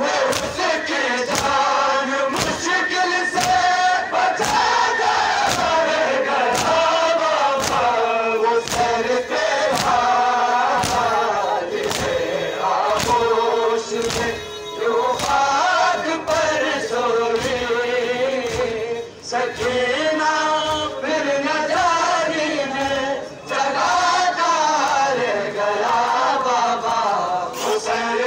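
A large crowd of men chanting a Balti noha (mourning lament) in unison, over a steady beat of hands striking chests in matam, a little faster than once a second.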